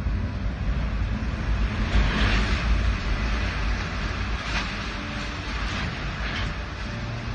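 Typhoon wind blowing hard in gusts, buffeting the microphone with a constant low rumble; the strongest gust swells about two seconds in.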